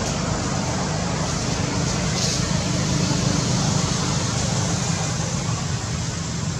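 Steady road traffic noise: a constant low engine rumble under an even hiss, with no single event standing out.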